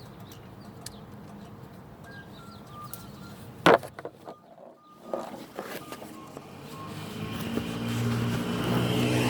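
A single sharp clunk about a third of the way in, then a motor vehicle's engine growing steadily louder over the last few seconds.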